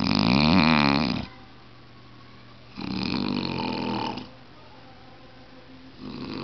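A man snoring in his sleep: three snores about three seconds apart, the first the loudest, with a wavering pitch.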